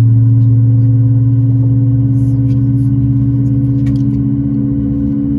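Steady low drone inside the cabin of a Boeing 737-8 MAX on the ground: a deep hum with a second, higher tone above it, slowly getting a little quieter.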